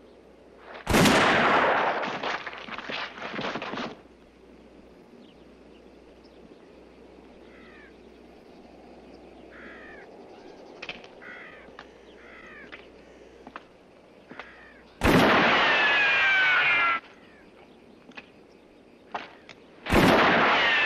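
Three revolver shots, about a second in, about fifteen seconds in and near the end. Each is a sharp crack followed by a long echoing tail lasting about two seconds. Faint short chirps fall in the quiet between the second and third shots.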